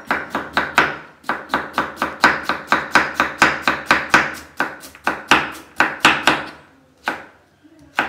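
Chef's knife dicing a carrot on a wooden chopping block: quick, even knife strikes on the wood, about four to five a second, that stop for a moment near the end before one more strike.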